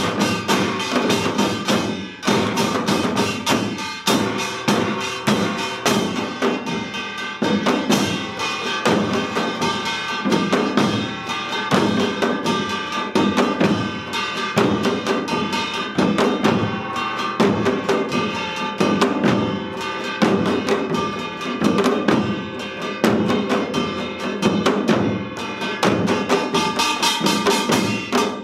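Samul nori ensemble playing Yeongnam rhythms: seated janggu hourglass drums and buk barrel drums beat a dense, driving pattern, with metal gongs ringing over it.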